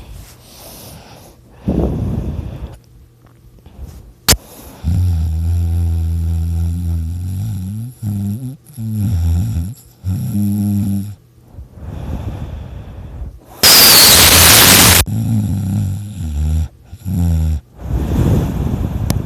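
A person snoring loudly: a long low snore, then shorter ones, with a loud rushing blast of breath about fourteen seconds in and noisier breaths after it.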